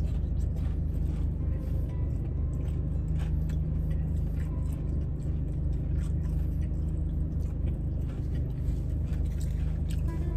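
A car engine idling with its air conditioning running, a steady low hum, under close chewing and small clicks and crinkles as a sauce cup is handled.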